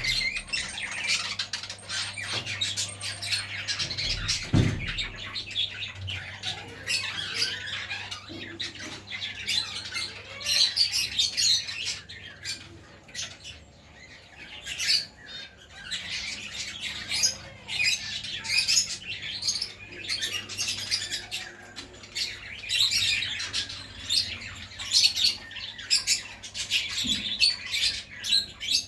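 A group of birds calling continuously with many short, high chirps, overlapping one another.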